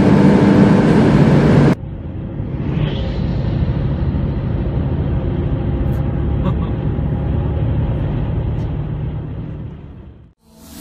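Porsche 911 Carrera S (991.2) twin-turbo flat-six pulling hard in sixth gear near 6,000 rpm at about 255 km/h, heard inside the cabin. After about two seconds it cuts suddenly to a quieter, steady drone of road and wind noise at motorway speed, which fades out near the end.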